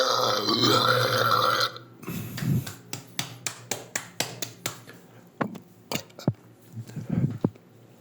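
A person burping: one long, loud burp lasting nearly two seconds, then several shorter, quieter burps with sharp clicks between them.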